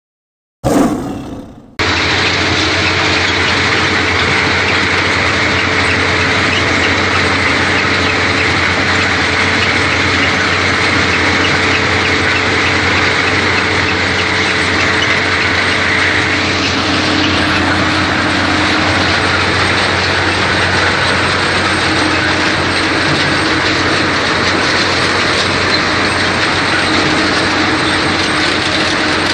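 A brief sound effect that starts sharply and fades over about a second, then a mechanical tomato harvester running steadily: its engine and sorting conveyors rattle on without a break, with a high whine that drops away about halfway through.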